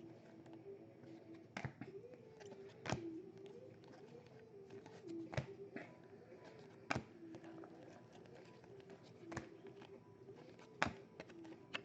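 Trading cards and packs being handled: quiet, sharp clicks and taps every second or two as cards are flicked through and set down.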